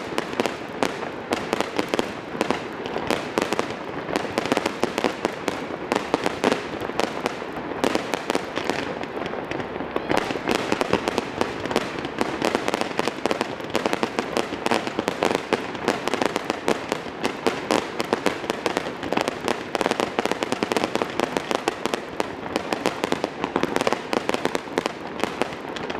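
Fireworks display: a dense, continuous barrage of launches and aerial bursts, many sharp bangs a second without a break.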